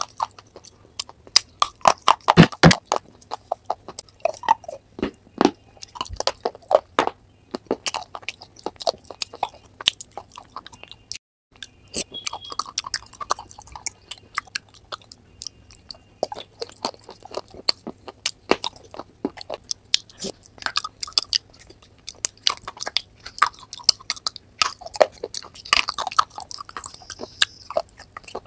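Crunching and chewing of clay pot pieces coated in creamy paste, with dense, irregular crackles and a short pause about eleven seconds in.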